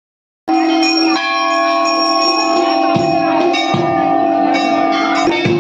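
Silence, then devotional music cuts in abruptly about half a second in: layered ringing bell tones held steady, with a few low drum beats.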